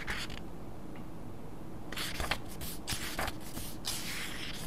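Book pages being leafed through by hand: a few short papery rustles and swishes, with a pause after the first and a longer rustle near the end.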